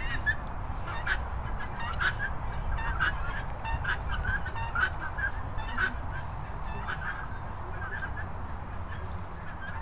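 A fowl calling in short, repeated honking notes, about one a second, with wind rumbling on the microphone.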